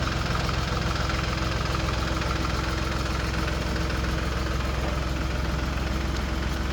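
An engine idling steadily, a low, even hum that began just before.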